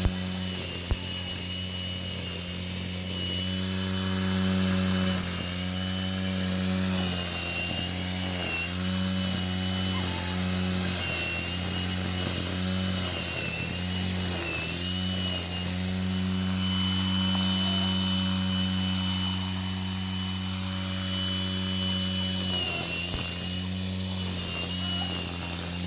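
Electric angle grinder rigged as a grass cutter, running steadily. Its pitch sags and recovers again and again as the spinning blade bites into grass, with a thin high whine over the motor.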